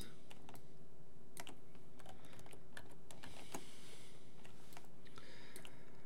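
Irregular, scattered clicks of computer keys and a mouse being operated at a desk, over a faint steady hum.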